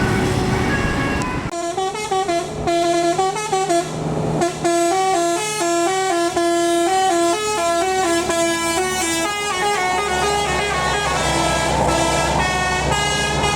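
Tour bus 'telolet' multi-tone musical air horn playing a quick tune of stepping notes, starting about a second and a half in, with the bus engine running underneath.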